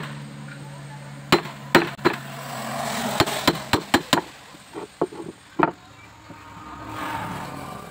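A hammer strikes a chisel, cutting a notch into a hardwood board. About a dozen sharp knocks come in uneven bursts, some quick and light, and they stop after a hard blow a little past halfway.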